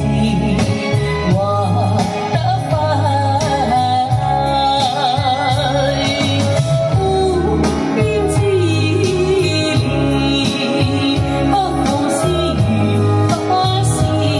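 A woman singing a slow Chinese ballad into a microphone with wide vibrato on her held notes, over a karaoke backing track with a steady beat.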